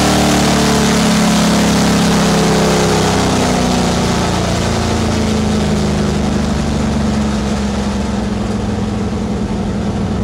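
Drag-raced Ford F-150's engine off the throttle after a full-power run, its revs falling slowly as the truck coasts and slows, heard from inside the cab with road and wind noise easing away.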